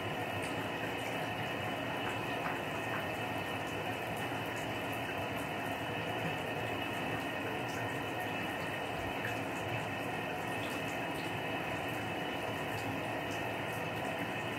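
Water running steadily from a bathtub tap.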